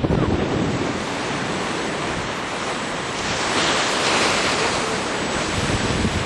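Wind buffeting the microphone, a steady rushing noise with low rumbling gusts; about three seconds in a higher hiss swells for a couple of seconds and fades.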